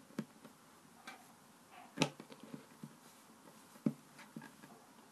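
Soft scattered taps and knocks of hands pressing and patting play dough on a wooden table, with two sharper knocks, one about two seconds in and one just before four seconds.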